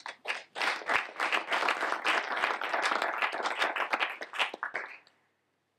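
Audience applause, many people clapping, starting about half a second in and dying away about five seconds in.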